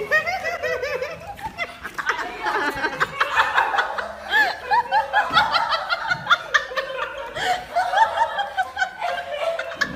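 Several people laughing and giggling in quick overlapping bursts, with music underneath.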